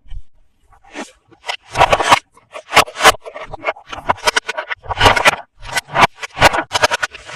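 Plastic and cardboard toy packaging being scraped and handled during unboxing: a quick, irregular run of short scratchy strokes.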